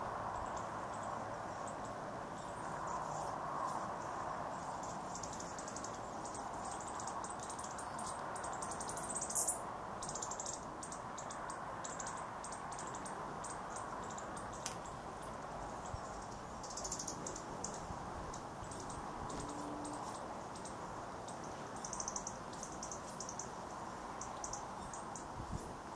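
Several hummingbirds at a feeder giving rapid, very high-pitched chittering and chip calls in short flurries, loudest about a third of the way in, over a steady background hiss.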